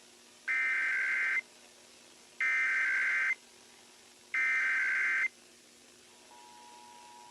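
Emergency Alert System SAME header: three identical bursts of warbling data tones, each just under a second long with about a second between them, the digital code that opens an EAS alert. About six seconds in, the EAS two-tone attention signal starts as a steady dual tone.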